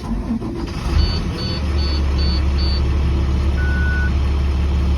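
Vehicle engine starting and settling into a steady idle. Five short high beeps sound while it catches, then one longer, lower beep.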